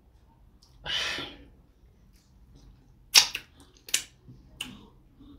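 Close-miked eating sounds: a short breathy puff about a second in, then a few sharp wet lip smacks and mouth clicks while chewing fufu with ogbono soup. The loudest smack comes a little past three seconds, with two more following about a second apart.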